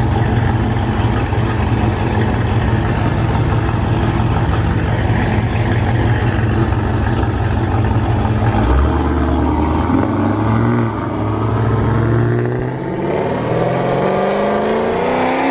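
Chevy SS's 6.2 L LS3 V8 with a stage 3 camshaft, running loud with an uneven, choppy pulse at low revs. About two-thirds of the way through it pulls away under throttle, and the revs climb steadily near the end.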